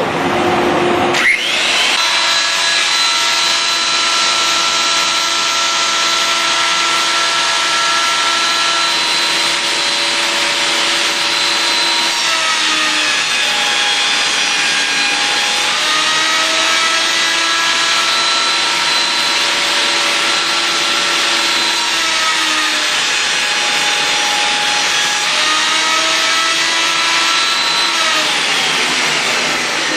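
Steel City 13-inch planer with a helical cutterhead starting up with a rising whine, then running steadily over a dust collector's rush. Twice its pitch drops while a cherry board is planed, then recovers. Near the end the planer winds down.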